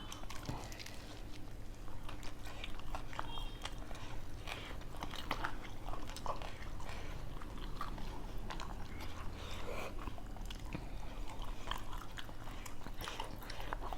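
People chewing and biting into food, with a scatter of quiet crunches and mouth clicks.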